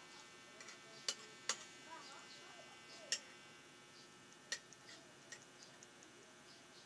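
Spoon and fork clinking against a plate and bowl while eating: a handful of sharp, separate clinks a second or so apart, the loudest about one and a half and three seconds in.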